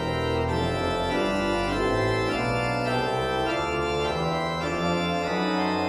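Pipe organ playing a slow succession of held chords over sustained deep bass notes.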